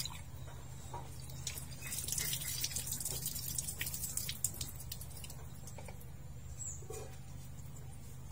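Water poured from a plastic dipper over a wooden cutting board and splashing onto a concrete floor, a few seconds of pouring and spattering with light knocks of the board and knife. A steady low hum runs underneath.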